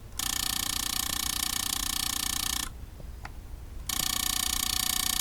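Model T Ford ignition buzz coil buzzing steadily on a Strobospark coil tester at its medium setting, its vibrator points chattering; the buzz stops for about a second midway, then starts again. It is firing with a good solid spark after its new points were adjusted.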